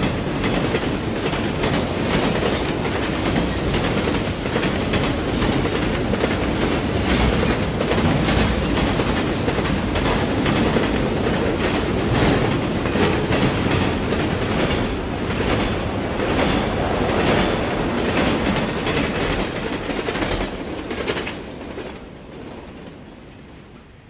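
Diesel train passing close by, its wheels clacking in a steady rhythm over the rail joints. Near the end the sound fades away as the train moves off.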